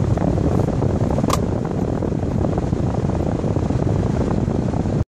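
Steady rushing of a car's ventilation fan inside the cabin of a standing car, with one short high ping about a second in.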